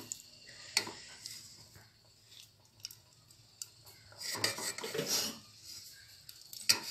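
A metal spoon clinking and scraping against a metal pot as it stirs thick potato kurma: a few sharp clinks, a longer scrape about four to five seconds in, and the loudest clink near the end.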